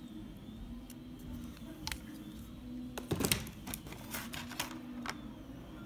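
Light plastic clicks and taps from handling a small syringe hydraulic rig, with a quick flurry about three seconds in, over a low steady hum.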